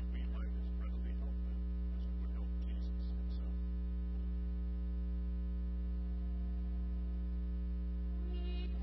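Steady low electrical hum on the sound feed, with a faint voice in the first few seconds. Singing of a hymn begins just before the end.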